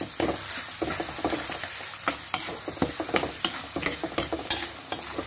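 A metal ladle scrapes and knocks against a wok as blended spice paste and lemongrass sizzle in hot oil. It makes a steady frying hiss with frequent irregular scrapes. The paste is being sautéed until fragrant.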